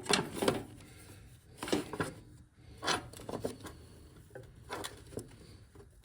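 Light metal clicks, taps and rubbing from hands and tools working on hydraulic hoses and hose clamps, several separate knocks spread over a few seconds.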